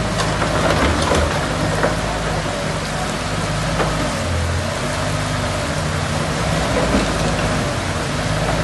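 Heavy rain falling steadily, with a few sharp drips or ticks. Underneath it an engine runs at a low, steady note.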